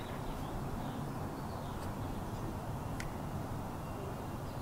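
Quiet outdoor background: a steady low hum with faint bird chirps, and a single light click about three seconds in.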